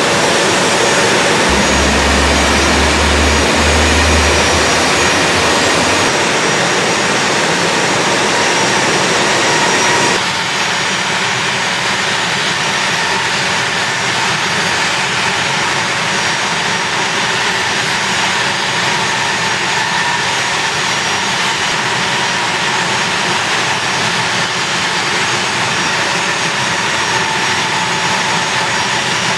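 A-10 Thunderbolt II's turbofan engines running steadily: a loud, even rush with a steady high whine over it. About ten seconds in, the sound shifts and the lower part of the rush drops back.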